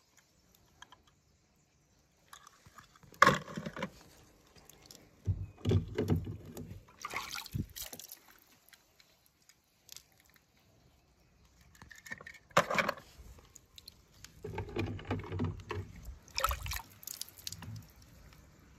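Toy cars handled in water: water sloshing and splashing in bursts, with a sharp splash about three seconds in and another near thirteen seconds, between quiet gaps.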